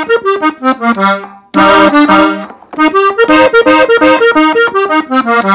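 Gabbanelli button accordion in F playing a quick run of single melody notes, an ornamental fill in E-flat, that ends on a held low note. A loud full chord comes in about a second and a half in, then another fast run of notes.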